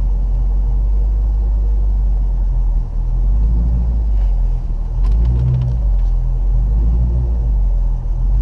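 2005 Dodge Magnum's engine idling steadily, with a few faint clicks about five seconds in.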